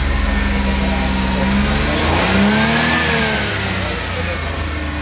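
Suzuki mini pickup engine running at idle, then revved once about two seconds in, the pitch rising and falling back to idle. The engine holds the rev without stalling, a sign that the stalling fault has been cured.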